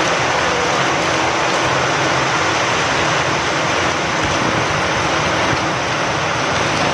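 Steady rain with wind: an even, unbroken hiss.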